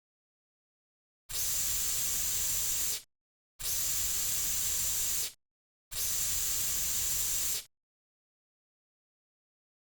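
Aerosol cockroach insecticide can with a narrow nozzle spraying in three steady bursts of about a second and a half to two seconds each, separated by short silent gaps.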